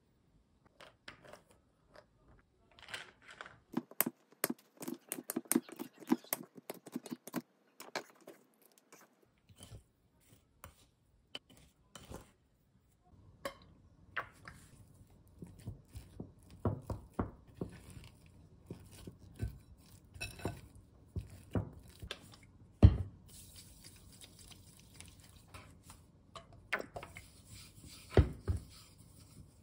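Kitchen handling sounds while working bread dough: a quick run of light clicks and taps, then scattered soft knocks with one loud thump about two-thirds of the way in, and a steady hiss near the end.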